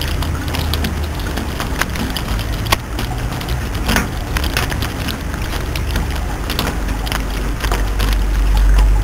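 Steady rain with irregular sharp drop impacts close by, over a continuous low rumble.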